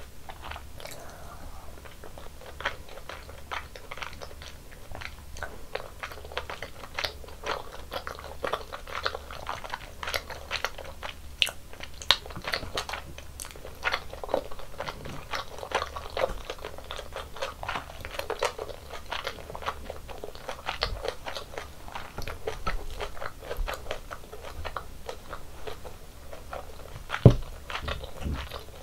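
Close-miked eating sounds: continual chewing and biting with many small wet mouth clicks. One sharp knock stands out near the end.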